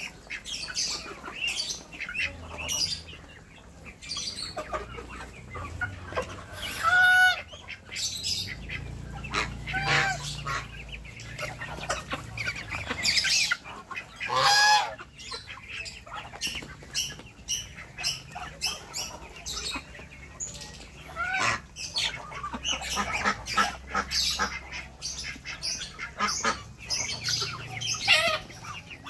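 A mixed flock of Muscovy ducks and free-range chickens feeding close together: a constant chatter of clucks and short calls with many small clicks, broken by a few louder squawks, the loudest about seven and fourteen seconds in.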